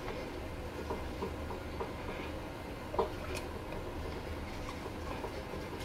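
Small clicks and taps of plastic parts being handled as a sea scooter's green plastic gear housing is fitted together, with one sharper click about three seconds in, over a steady low hum.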